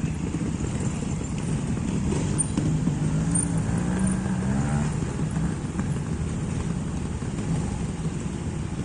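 Trials motorcycle engine running at low revs, its pitch rising and falling a little around the middle.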